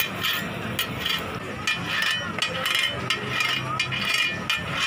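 Metal scraper working across a hot flat griddle of crispy butter pancakes: a rapid, irregular run of scrapes and clicks of metal on metal, over a low steady background hum.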